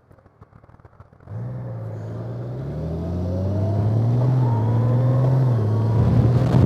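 Motorcycle engine picking up about a second in as the bike pulls away, its pitch climbing steadily under acceleration, then dipping slightly near the end as it shifts up.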